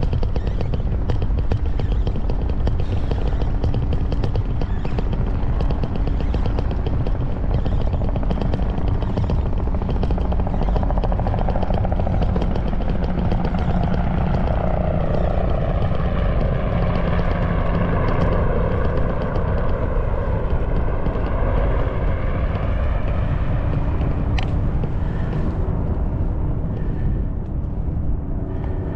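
Steady road-vehicle noise, a continuous low rumble, with a slow sweeping change in tone through the middle.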